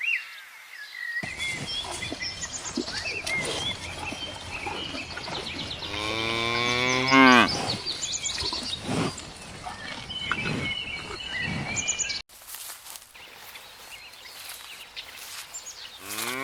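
A cow moos once, a long call of about a second and a half starting some six seconds in, and a second moo begins right at the end. Small birds chirp in the background throughout.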